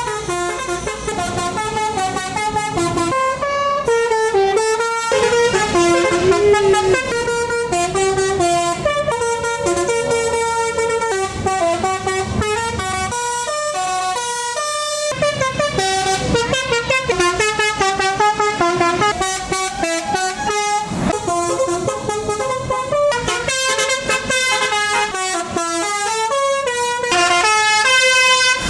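Telolet basuri multi-trumpet musical horn on a tour bus playing a fast melody, its tones stepping quickly from note to note, with a brief pause about halfway through.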